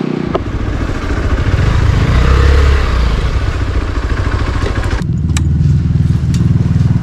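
Small single-cylinder dual-sport motorcycle engine running at low speed under way, heard from on the bike. About five seconds in the sound cuts abruptly to a steadier, deeper engine running near idle, with a few clicks.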